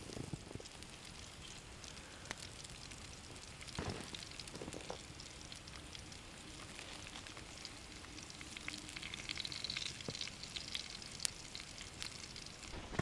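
Faint crackling of a small campfire with bacon sizzling in a frying pan over it, with scattered sharp pops.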